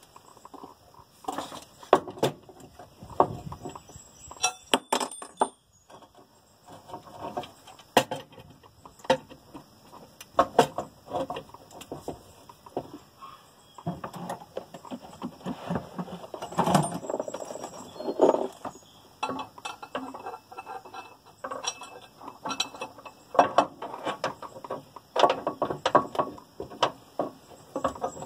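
Hand tools and metal parts clinking and knocking irregularly, many short sharp taps and clatters, during hands-on work on a diesel pickup's fuel system.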